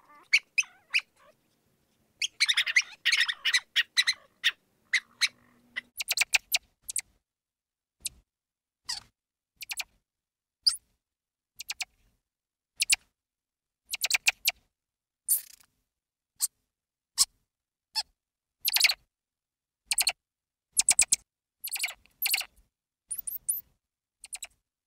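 Mouse squeaking: many very short, high-pitched squeaks. They come in a dense run about two to four seconds in, then singly or in little groups every second or so.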